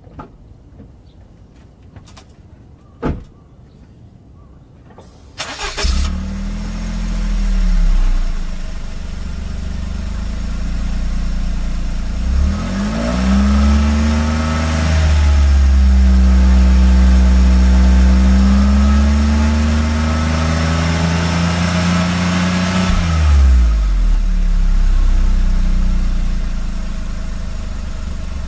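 Exhaust of a Suzuki Wagon R Stingray Turbo (MH34S) through its stock muffler, a 660 cc three-cylinder turbo engine. After a sharp click, the engine starts about five seconds in, flares up briefly and settles to idle. It is then revved and held high for about ten seconds, its pitch wavering, before dropping back to idle.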